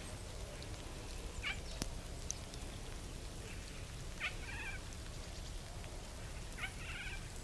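Short high-pitched animal calls, one faint and then two clearer ones about two and a half seconds apart, each a sharp note followed by a quick wavering trill, over a low steady rumble.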